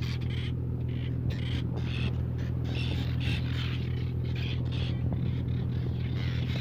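A flock of seabirds calling, many short harsh calls following one another closely, over the steady low drone of the fishing boat's engine.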